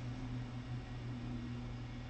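Steady low electrical hum with an even hiss underneath: room tone from an idle microphone.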